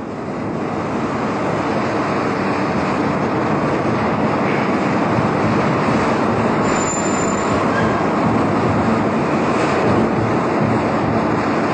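Steady, even rushing noise of a vehicle in motion, with no clear engine note.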